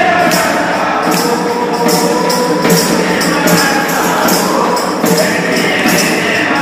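Live devotional-style group music: a man singing through a microphone, accompanied by a frame drum and handheld jingle rings shaken on a steady beat of about two to three strokes a second.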